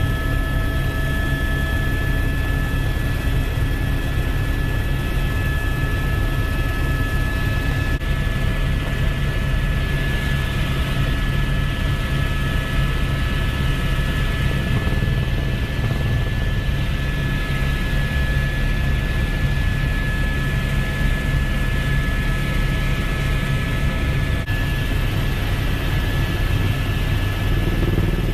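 Aircraft engine noise: a loud, steady low drone with a constant high whine held throughout, unchanging in pitch.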